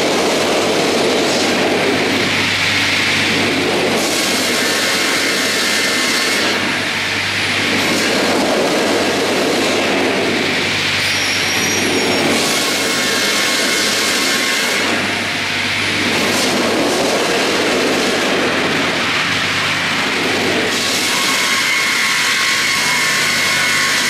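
StrojCAD D9 double-bladed circular sawmill running through spruce: a steady motor hum under loud sawing noise that swells and eases every few seconds as the log carriage passes the blades.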